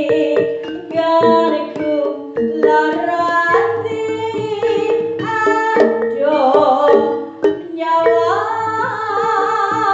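Jaranan music: hand drums (kendang) and struck metal gamelan notes playing a quick, busy pattern, with a woman singing over it.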